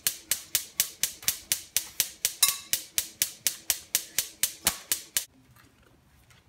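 Gas stove burner igniter clicking evenly, about four clicks a second, stopping about five seconds in.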